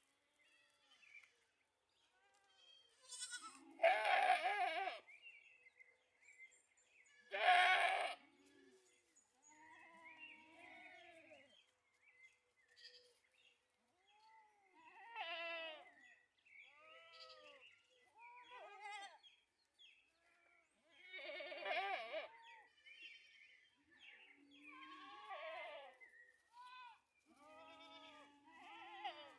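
Goats bleating again and again: two loud bleats about four and eight seconds in, then a string of quieter bleats through the rest.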